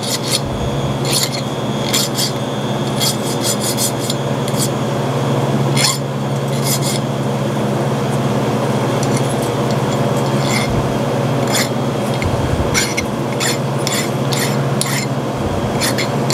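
Hand file deburring small drilled metal parts: short, quick strokes in runs separated by brief pauses. A steady low machine hum runs underneath.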